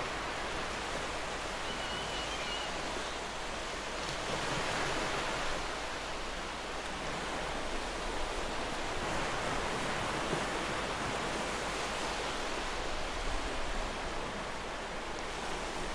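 Steady rush of sea surf on a shore, swelling and easing every few seconds, with a faint short high chirp about two seconds in.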